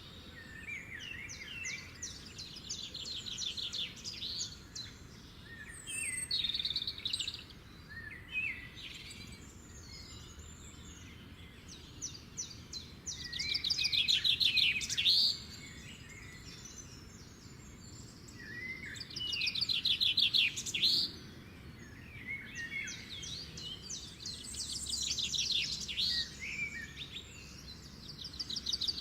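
Songbirds singing in bouts of fast trills mixed with short chirps, several seconds apart, with the loudest bouts in the middle and toward the end.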